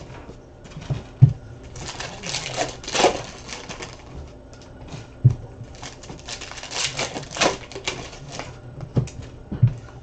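Foil trading-card pack wrappers crinkling and tearing open as the cards are pulled out and handled, with several sharp taps of cards or packs against the desk.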